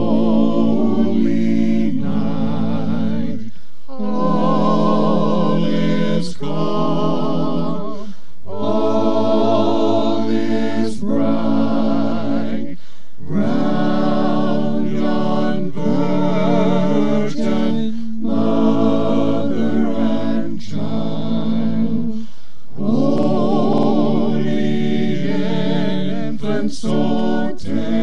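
Church congregation singing a Christmas hymn together a cappella, in long sung phrases with a short breath between them every four or five seconds.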